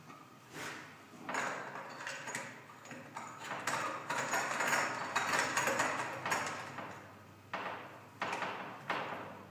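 A rag being rubbed and pressed over a plastic bath waste fitting on the back of a bathtub: rustling, scraping handling noise, loudest in the middle, followed by a few light knocks near the end.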